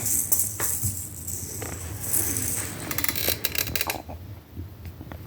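Jingling, rattling toy ball on the end of a fishing-rod pet toy being batted about, with sharp clicks mixed in. The rattling stops about four seconds in, leaving only a few faint clicks.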